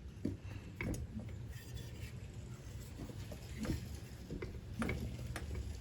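Scattered light clicks and taps of metal lawnmower-engine parts being handled, a few in all, over a low steady hum.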